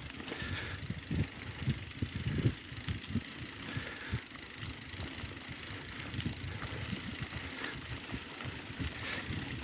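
Mountain bike riding over rough trail: irregular low knocks and rattles from the bike over a steady rushing noise.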